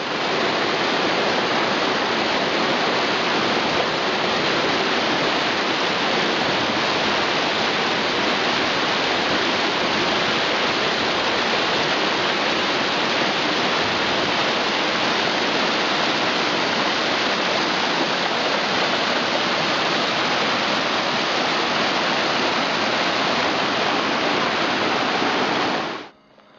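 A waterfall rushing steadily as it drops down a rock cliff and cascades over boulders. The sound stops suddenly near the end.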